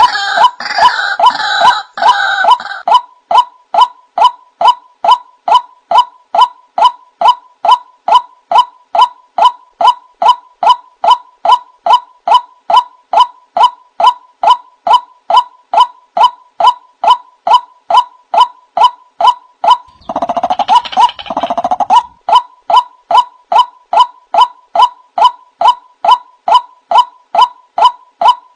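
White-breasted waterhen calls played as a lure: a long, steady run of loud 'wak' notes, about two a second. Harsher, denser chattering comes over them at the start and again for a couple of seconds about two-thirds of the way through.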